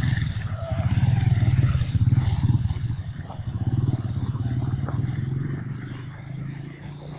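Small motorcycle engine running close by as it rides off over a wet road, a fast pulsing rumble that grows fainter in the last couple of seconds.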